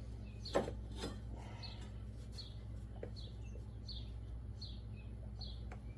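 A dull pocket knife scraping and sawing at a riding mower's drive belt, with a few sharp clicks, the loudest about half a second in. A bird chirps repeatedly, about once a second, over a steady low hum.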